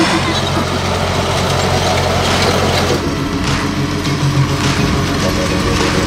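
Large farm tractor's diesel engine running steadily during field work. Its note shifts about halfway through.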